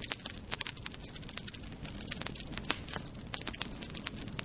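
Fire crackling in a fireplace: a dense, irregular run of pops and snaps.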